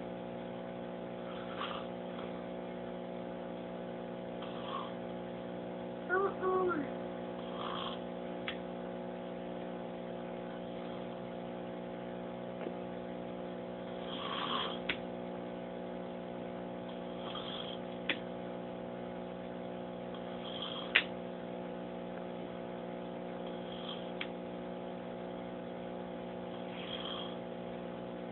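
A man snoring in slow breaths about every three seconds over a steady hum, with a few sharp clicks (the loudest about 21 seconds in) and a brief voice about six seconds in.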